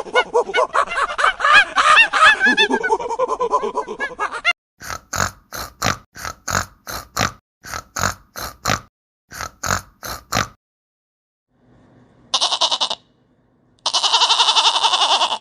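Farm animal calls in quick succession: a clamour of many overlapping calls, then about a dozen short, evenly spaced grunting calls, then two harsh, noisy cries near the end.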